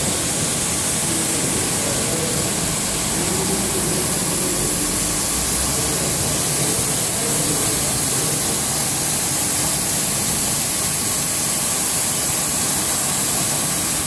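Automatic carpet washing machine running steadily, its rotating brush discs scrubbing a carpet on the conveyor: an even, loud rushing noise with a strong hiss.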